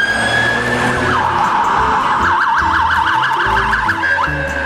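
Electronic police-style siren from a toy police car: a wail that rises and holds, then about a second in switches to a fast yelp warbling up and down several times a second, stopping near the end.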